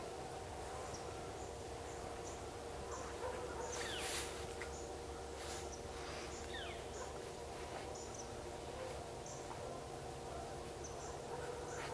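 Yipping, howling canine calls, purported to be coyotes, falling in pitch in a short burst about four to seven seconds in. Steady insect chirping and trilling continues under them.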